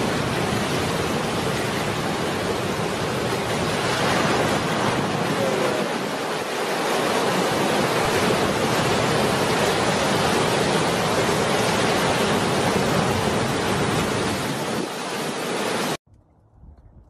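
Steady rushing noise of heavy ocean surf and wind, which cuts off abruptly about a second before the end.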